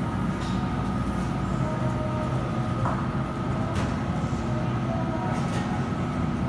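Model train running on its overhead ceiling track, a steady rumble of wheels and motor over the hum of a large room, with a few faint short beeps and light clicks.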